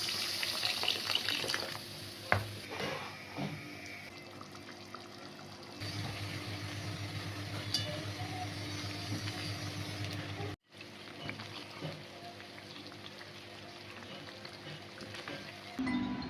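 Food frying in a pan with a steady sizzle, and now and then the clink of a utensil stirring against the pan.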